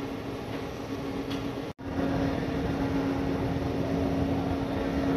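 Steady hum of a stationary electric train's onboard equipment beside a station platform, with a constant low tone. It cuts out for an instant a little under two seconds in and comes back a little louder.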